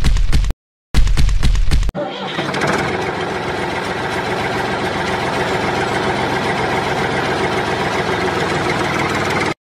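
Tractor engine sound, dubbed over a toy tractor: two short bursts as it tries to start, then it catches about two seconds in and runs steadily at idle until it cuts off suddenly near the end.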